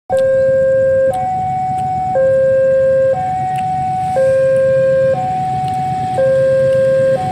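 Electronic two-tone warning alarm, switching between a lower and a higher tone about once a second, over a low steady rumble.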